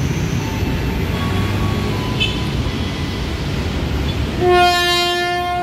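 KRL commuter electric train standing at the platform with a steady running hum, then about four seconds in its horn sounds one long, loud, steady note after the doors have closed, signalling departure.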